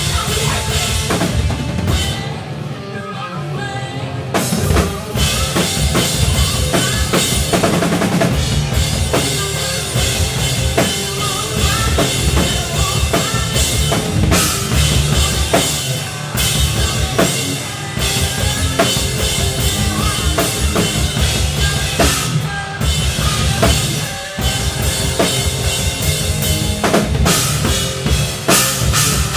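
Live rock band playing, with the drum kit loudest at close range: bass drum and snare hits driving the song over the rest of the band. The music drops back briefly a couple of seconds in, then the full band comes back in.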